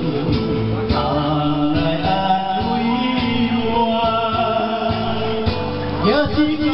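Background music with a male voice singing over a steady beat.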